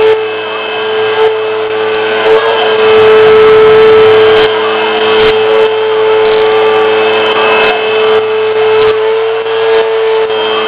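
Homemade high-speed spindle head on a Fervi T044 CNC mill driving a 14 mm four-flute end mill through aluminium, 2 mm deep at 2200 mm/min feed. It makes a loud, steady whine with a gritty cutting noise, and short ticks now and then.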